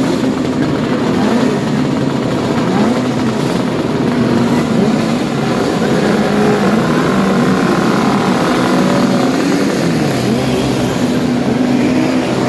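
Many vintage racing motorcycles, two-strokes among them, running and blipping their throttles together on the start grid, the overlapping engine notes rising and falling. Near the end the bikes pull away from the line.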